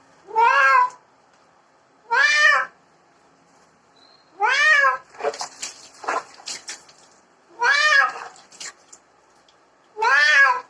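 Domestic cat meowing five times, about every two seconds, each meow rising then falling in pitch. Between the third and fourth meows come a few short knocks and clicks.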